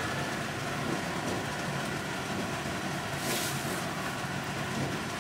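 Steady roar of a lit gas stove burner heating oil in an aluminium pot, with a brief hiss about three seconds in.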